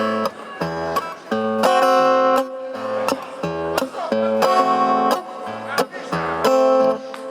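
Acoustic guitar playing the instrumental introduction to a song: chords alternating with low bass notes in a steady, repeating rhythm.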